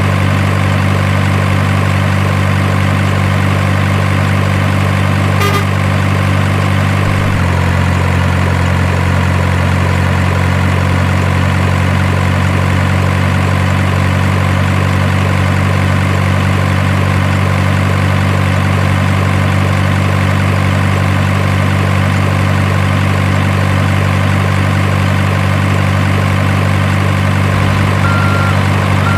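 Simulated heavy diesel truck engine idling, steady and loud, with a slight drop in its note about seven seconds in. A short high beep sounds near the end.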